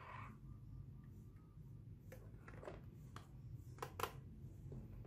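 Light clicks and taps of a Samsung SSD and its external USB drive enclosure being handled and fitted together, a handful of them, the sharpest two in quick succession about four seconds in, over a low steady hum.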